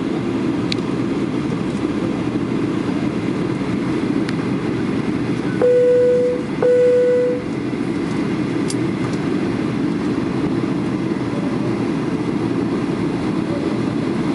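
Steady rushing cabin noise of an airliner in flight on its descent. Midway through, two short, loud, steady tones of the same pitch sound about a second apart.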